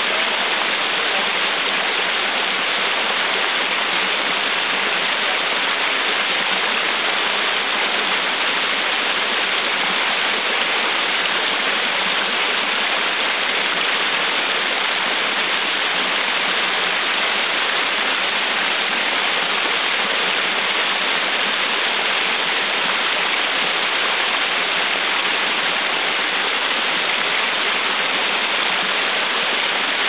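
Brook water rushing over a small cascade of mossy rock, a steady, unbroken rush of falling white water.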